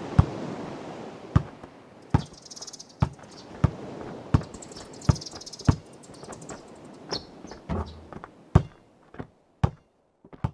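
A basketball bouncing on hard ground, dribbled at roughly one bounce a second, over a steady wash of sea waves, with birds chirping twice in the middle. The waves stop near the end, leaving only the last few bounces.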